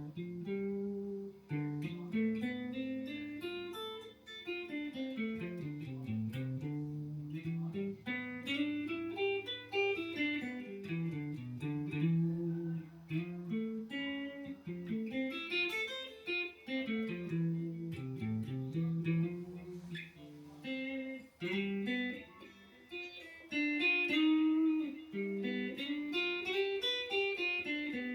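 Guitar practice: single notes picked in quick runs that climb and fall over and over, like scales being practised.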